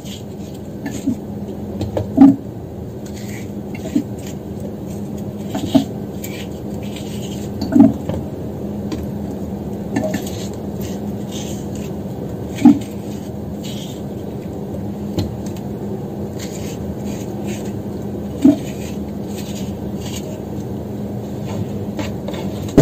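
Sharp knocks and clicks every few seconds as a small utensil and cut pieces of angled luffa strike a tray while the luffa sections are being hollowed out, over a steady low hum.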